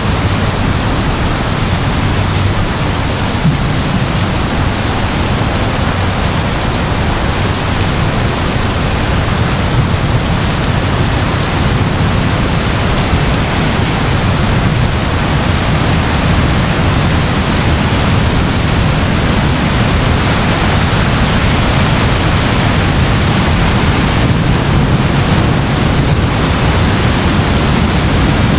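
Heavy rain pouring steadily in a thunderstorm, a loud even hiss, with a low rumble that swells and fades at times.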